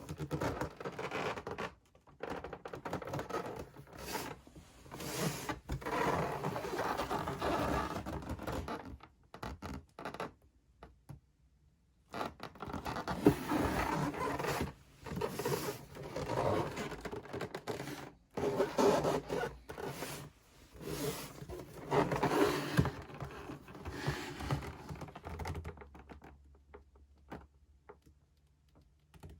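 Packaging being handled and opened: irregular scraping and rustling in stretches of a few seconds, with short pauses between them.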